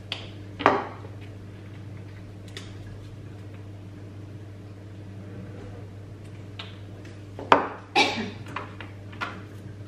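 Small spice jars knocking and clinking as they are handled and set down on a kitchen counter: a couple of sharp knocks at the start, then a quick run of louder knocks near the end. A steady low hum runs underneath.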